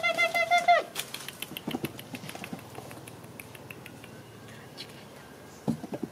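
A young animal's high, wavering squeal lasting under a second, then faint clicks and rustling of handling, with a soft knock near the end.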